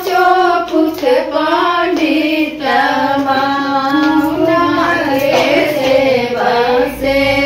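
Group of women singing a Chhath Puja devotional song together.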